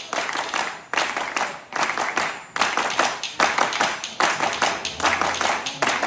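Wooden spoons (kaşık) clacked by a dancer together with rhythmic hand-clapping keeping time, the tempo clapping that goes with an Ankara spoon dance. The clicks come in short repeating phrases.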